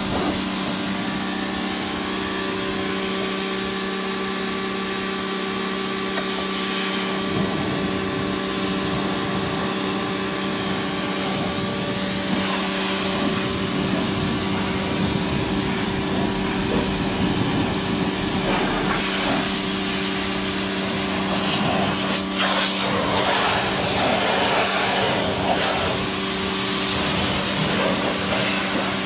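Electric pressure washer running steadily, its motor and pump giving a constant hum under the hiss of the spray hitting the side-by-side's rear wheel and underside. The spray hiss comes and goes in strength through the second half.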